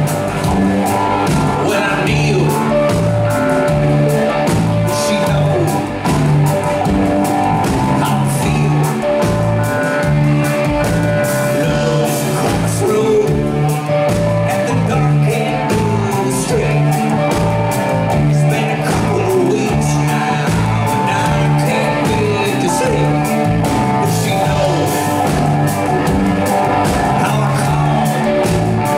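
Live rock band playing a song: electric guitars, bass, drums and keyboards over a steady beat, with a held note that drops out and comes back several times.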